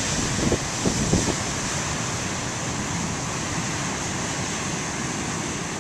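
Wind blowing over the microphone, with a few low buffeting gusts in the first second, over a steady rushing noise of wind and surf.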